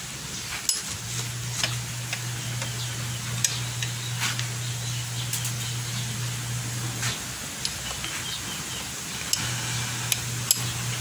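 A few sharp metal clicks as a 17 mm open-end wrench is fitted to a motorcycle engine's oil drain plug and the plug is worked loose, over a steady low hum.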